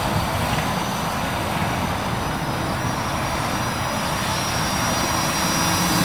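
Parrot Anafi quadcopter's propellers buzzing steadily as it hovers and flies low, getting a little louder near the end as it comes in close.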